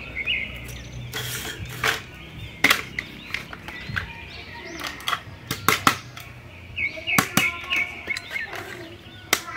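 Hard plastic light-up superhero toy figures being handled and set down, giving an irregular run of sharp clicks and taps, with faint high tones coming and going underneath.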